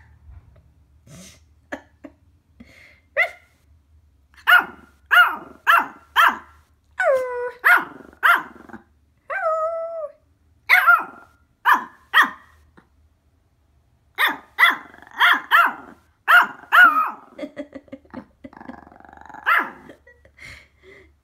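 A small puppy barking and yipping in quick runs of about two barks a second, mixed with a few longer, drawn-out calls that slide down in pitch, like the puppy is talking back.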